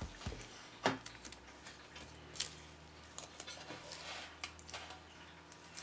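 Hands handling a beige plastic Amiga A590 casing part on a desk: a sharp knock about a second in, another click a little later, then light scattered ticks and crackles as the fingers work at its surface.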